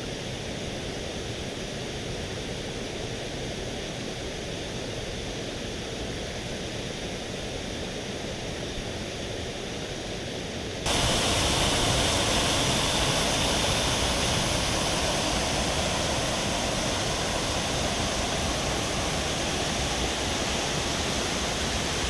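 Waterfall rushing, a steady wash of falling water. About halfway through it becomes suddenly louder and hissier.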